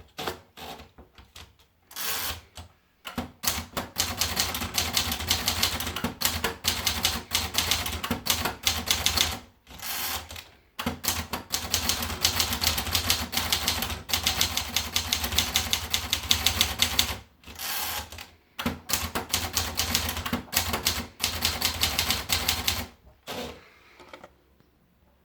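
Olivetti Dora manual portable typewriter being typed on: fast runs of key strikes clattering, broken by short pauses every few seconds.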